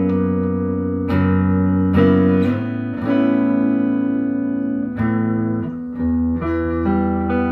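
Westminster SG-style electric guitar played through an amplifier: chords strummed and left to ring, changing about once a second.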